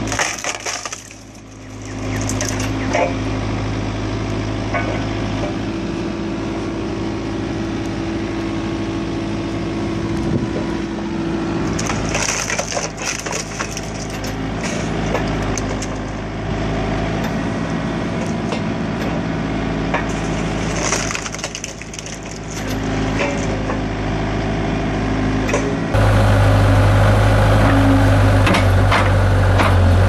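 Excavator-mounted hydraulic log splitter forcing its blade through wood rounds over a steady engine drone, the wood cracking and splintering in bursts a couple of times. Near the end the sound cuts abruptly to a louder, steady machine engine drone.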